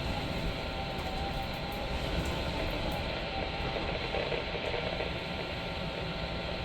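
Steady static and hiss on a NOAA Weather Radio reception, with a faint hum running under it; the broadcast voice is lost in the noise.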